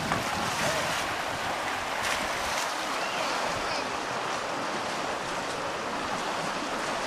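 Rapids on a creek: a steady rush of whitewater.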